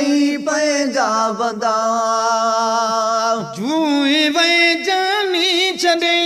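A man singing a Sindhi folk song, drawing out a vowel without words: one note held steady for about two seconds, then a quick dip and rise into wavering, ornamented turns.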